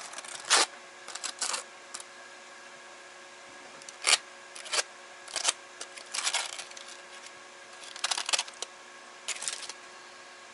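Knife and fork clicking and scraping in short, irregular strokes while cutting into a cooked pork chop.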